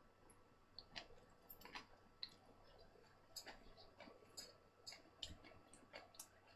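Faint, irregular wet clicks and smacks of a person chewing a large mouthful of food.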